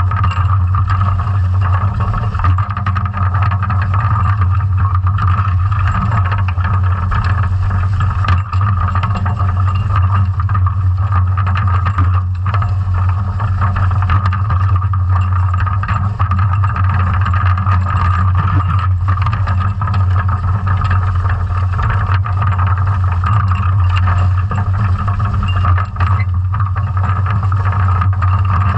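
Steady underwater noise of a scallop dredge under tow across the seabed, heard from a camera on the dredge frame: a constant low drone that does not let up.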